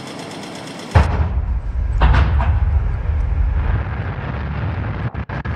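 Electroacoustic sound design made from processed city field recordings: a rhythmic, machine-like noise texture breaks off about a second in into a sudden heavy boom with a sustained deep rumble. A second hit follows about a second later, and near the end the rumble stutters, chopped into rapid cut-outs.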